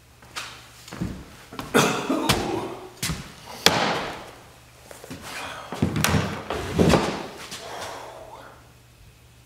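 A string of knocks and thumps from a man walking in and sitting down at a table: footsteps, a chair and things being moved, about seven sharp knocks in the first seven seconds, then fading. A faint steady low hum runs underneath.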